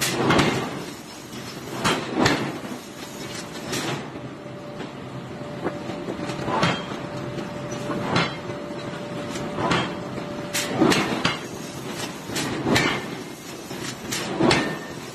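Forging hammer blows on a red-hot hollow iron forging: sharp metal impacts, unevenly spaced about one to two seconds apart, over steady workshop machinery noise.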